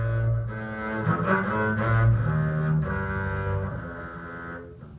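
Double bass played with the bow: a slow line of long sustained notes, changing pitch about once a second, growing softer near the end.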